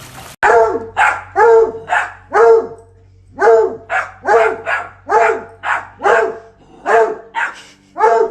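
A dog barking over and over, about two barks a second, each bark falling in pitch, with a short pause about three seconds in.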